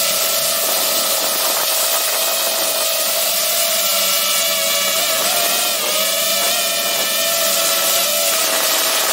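DJI FPV quadcopter's motors and propellers whining in flight, a steady high-pitched hum whose pitch wavers slightly with the throttle, over a steady hiss of rushing air.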